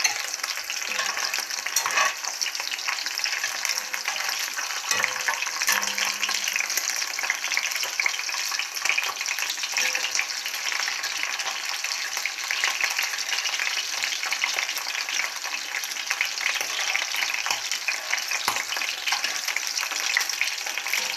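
Lamb liver sizzling and crackling in hot oil in a cast-iron frying pan, with the occasional scrape and tap of a metal spatula turning the pieces.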